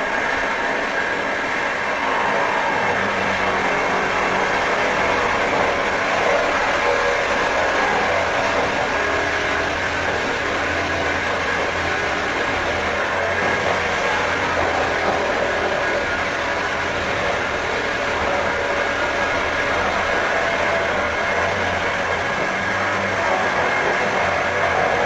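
Power drill running steadily without a break, a dense mechanical noise with a faint high whine.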